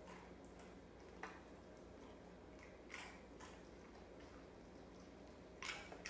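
A dog snapping at goldfish in water: four or five brief, faint wet splashes and snaps, spaced a second or two apart, over near-quiet room tone.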